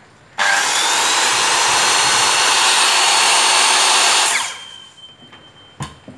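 Makita 160 mm electric circular saw (650 W, 100 V) switched on and run free without cutting for about four seconds, with a steady high whirr. It is then switched off and spins down with a falling pitch, leaving a faint thin whine, and there is a click near the end.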